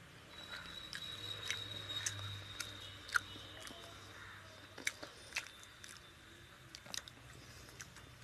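Eating by hand: wet clicks and smacks of chewing and of fingers working rice into pomfret (rupchanda) fish curry, scattered irregularly.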